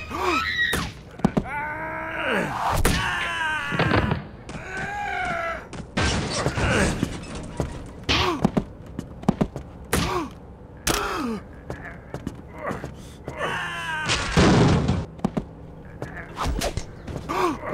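Staged fist-fight sound effects: two men grunting and groaning with effort and pain, mixed with repeated punch thuds and heavier knocks and bumps of bodies against furniture.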